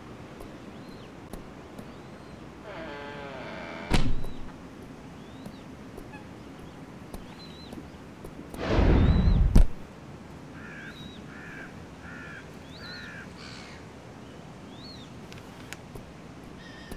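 Birds chirp throughout. About three seconds in, a door creaks open and then shuts with a sharp thunk. Near the middle comes a loud, low, noisy sound about a second long, and after it a bird calls four times.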